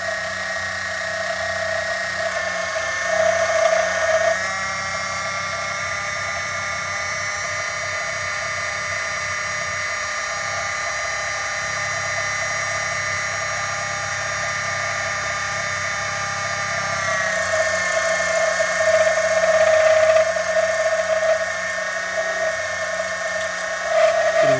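Small hobby mini lathe's electric motor running with a steady whine while the tool cuts a workpiece turning in the chuck. The pitch steps up about four seconds in, then sags back down around seventeen seconds in as the RPM drops under the cut.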